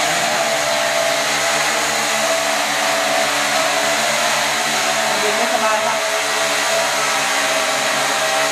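TY923 toy camera quadcopter's four motors and propellers running in flight, a loud steady whir whose tones waver briefly about halfway through.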